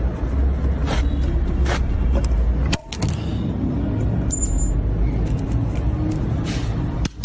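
A steady low rumble, like an engine running nearby, with a few sharp metallic clicks and snaps from steel combination pliers gripping and cutting a padlock shackle and a nail.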